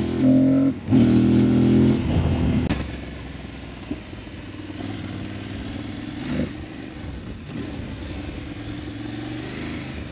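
Aprilia Tuareg 660's parallel-twin engine running on the road, loud and steady for about the first two seconds with a brief dip near one second, then settling to a quieter, even running sound.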